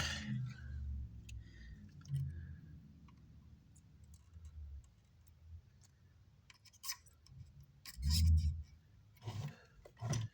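Scattered clicks and small knocks of hands and tools handling an amplifier circuit board and parts on a workbench, with a dull thump about eight seconds in.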